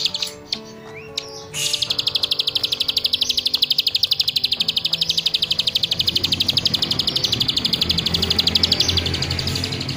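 Caged ciblek sawah, a prinia, singing a long, fast, buzzing high trill of rapid even pulses, which stops for about the first second and a half and then runs on without a break. Background music plays faintly underneath.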